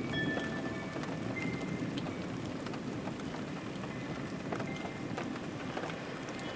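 Steady rain falling, with individual drops ticking now and then.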